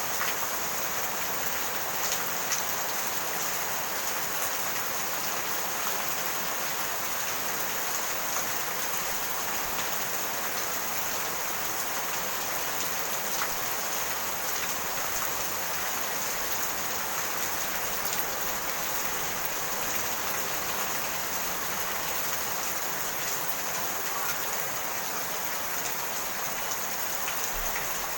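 Steady rain falling: an even hiss with scattered small drop taps.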